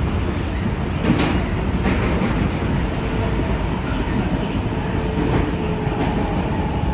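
R142A subway train running on new rail through a tunnel: a steady wheel-on-rail rumble with a few sharp clicks from the wheels. About halfway through, a faint steady motor whine joins in as the train enters a station.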